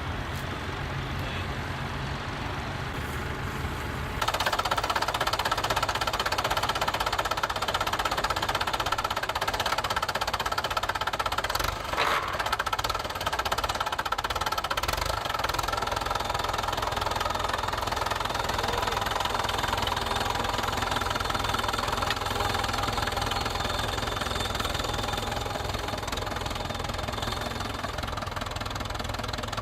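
Tractor engine running steadily, growing louder about four seconds in and staying at that level. A single sharp click sounds near the middle.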